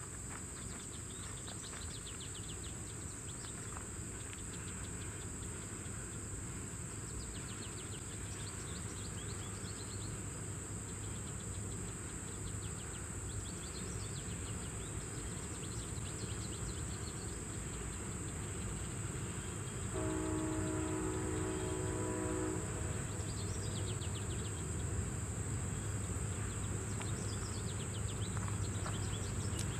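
Union Pacific train rumbling low and growing louder as it approaches, over a steady high buzz of insects. About two-thirds of the way in, a locomotive horn blows once, a chord of several tones, for about two and a half seconds.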